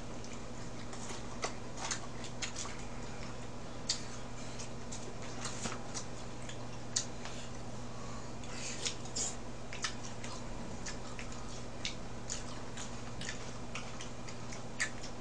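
Eating raw mullet sashimi with chopsticks over a steady low hum: scattered small clicks of chopsticks on plates and soft chewing sounds at irregular moments.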